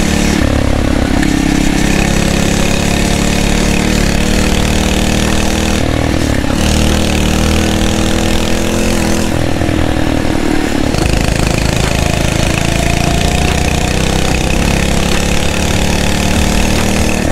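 Phatmoto Rover's 79cc four-stroke engine running while the bike is ridden off road, its pitch rising and falling with the throttle. The engine note drops briefly about six seconds in and again around ten seconds.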